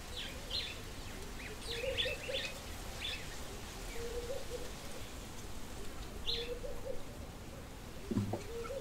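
Birds chirping in short scattered calls, with a lower warbling call repeating about every two seconds, over a steady low wind rumble.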